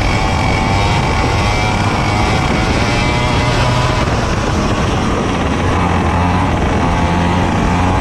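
Racing kart engine running hard on track, its pitch rising and falling with the throttle through the corners, over steady wind and road noise.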